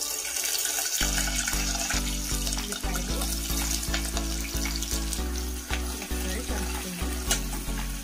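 Hot oil sizzling in a deep pot as green chillies and then sliced onions go into a tempering of cumin, mustard seeds and dried red chillies. Background music with a stepping bass line comes in about a second in.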